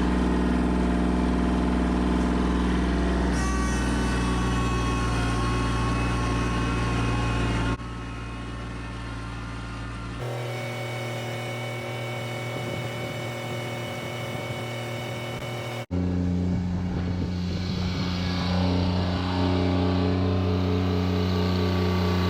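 Two-stroke chainsaw on an Alaskan chainsaw mill, running at steady high revs while ripping a cherry log lengthwise into slabs. The engine note holds an even pitch. It drops abruptly to a quieter level about eight seconds in and comes back up just as abruptly about eight seconds later.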